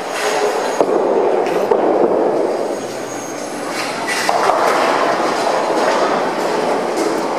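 AMF 82-70 bowling pinspotter cycling: the setting deck lowers over the pins and lifts again, with a continuous mechanical rattle and clatter. There are sharp clicks in the first two seconds, and the noise grows louder about four seconds in.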